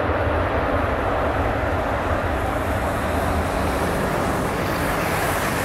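Boeing 737-800's CFM56-7B jet engines running loud and steady as the airliner rolls out on the wet runway after touchdown. A low drone under the roar shifts in pitch about four seconds in.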